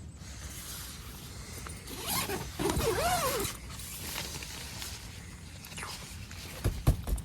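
A zipper being drawn, its pitch sweeping up and down for about a second and a half, about two seconds in. A few short low thumps near the end.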